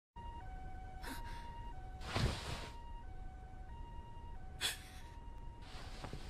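Two-tone hi-lo emergency siren, alternating between a higher and a lower note about every 0.7 seconds. A few short rushing bursts break in, the loudest about two seconds in.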